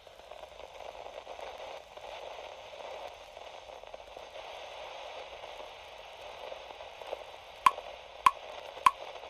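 Steady static hiss with a thin, old-radio quality. Near the end, three sharp clicks come about half a second apart, each with a brief ring.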